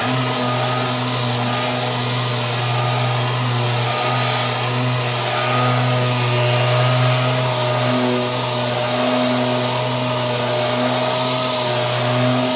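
Orbital sander with a dust-extraction hose running steadily, its pad sanding down cured body filler on a car door panel. Steady hum with a hiss on top, wavering slightly every few seconds as the pad is moved over the panel.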